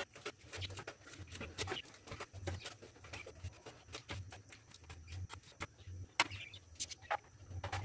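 Plastic knife chopping spring onions on a plastic cutting board: a quick, uneven series of light knocks, several a second.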